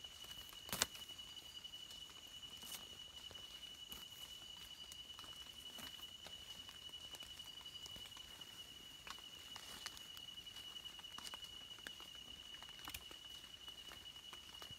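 A small knife and fingers scraping and rustling in wet leaf litter and soil while digging mushrooms out, with scattered small clicks and one sharper knock about a second in. A steady high-pitched whine sits behind it.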